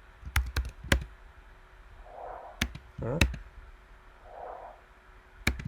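Short swooshes of filtered pink noise, each swelling and fading in about half a second, heard twice, with several sharp clicks, the loudest sounds, around them.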